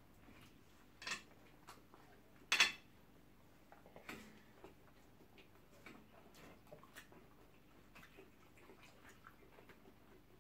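Eating sounds: a spoon clicking and tapping against a plate of rice and stew, with two louder clinks about one and two and a half seconds in.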